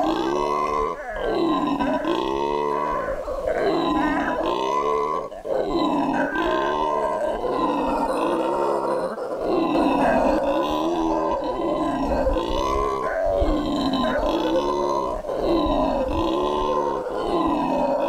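Male black howler monkey howling: a long train of deep, loud roars, about one a second, each rising and falling in pitch.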